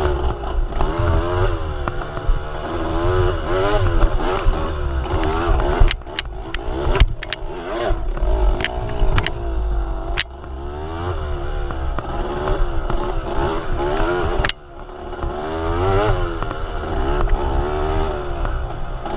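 A vehicle engine running under way, its pitch rising and falling as the revs change, over a heavy low rumble, with a few sharp knocks.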